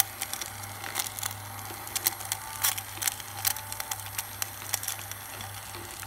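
Small battery-powered DC motor spinning the fan of a homemade plastic-bottle vacuum cleaner, running with a steady hum. Scraps of paper being sucked in tick and rattle irregularly against the fan and the bottle.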